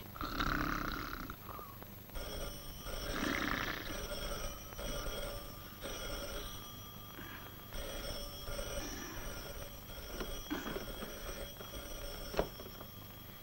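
Rotary desk telephone ringing steadily, with a short break midway, while a sleeping man grunts and mumbles. A click near the end as the receiver is lifted, and the ringing stops.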